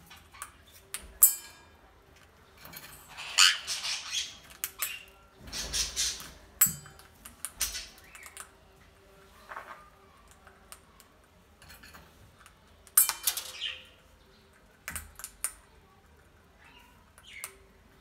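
A conure gives several short, harsh squawks in irregular bursts, with sharp clicks and taps between them as it feeds at a metal bowl.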